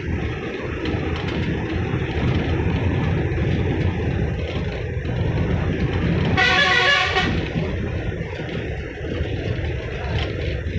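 Steady engine and road rumble of a moving bus, heard from inside the bus. A vehicle horn sounds once for about a second past the middle.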